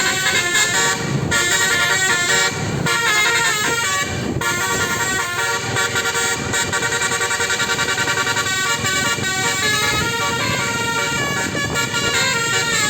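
Basuri musical air horn ("telolet" horn) on a bus playing a melody: a run of loud horn notes that step quickly from pitch to pitch, with a few brief breaks in the first few seconds.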